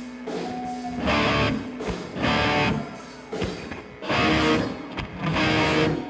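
Live rock band playing heavy electric guitar chords, with no singing. The chords swell loud and fall back about once a second.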